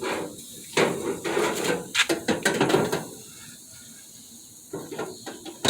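Clattering and rattling of a smoker's metal racks and door as meat is loaded in: a run of quick knocks for about two seconds, then a few softer clicks near the end.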